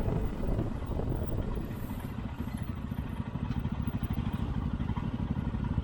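Single-cylinder adventure motorcycle engine running at a steady cruise, its exhaust a fast, even train of pulses.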